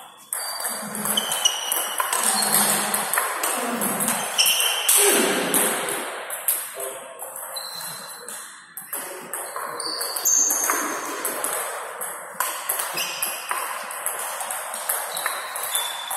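Table tennis ball being played back and forth, a string of sharp clicks as it strikes the rackets and bounces on the table, with short high-pitched pings.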